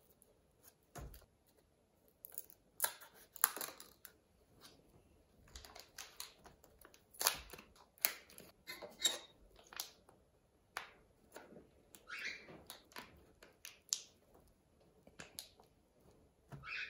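Foil wrapper and cardboard sleeve of a block of DAS air-dry modelling clay being torn open and peeled off by hand: irregular crinkling and rustling, with a few soft knocks.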